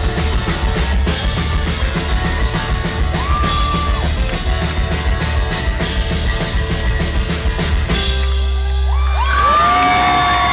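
Rock band playing live to the end of a song with a steady beat. About eight seconds in the song stops on a held chord and the crowd breaks into yells and whoops.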